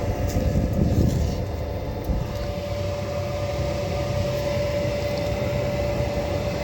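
90% gas furnace running on a call for heat: a steady hum from the inducer motor with a constant whine, a little louder in the first two seconds.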